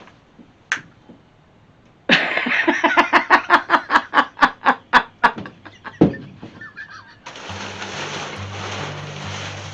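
A rapid run of laughing, about five short pulses a second, lasting about three seconds. Background blues music with a stepping bass line comes in about seven seconds in.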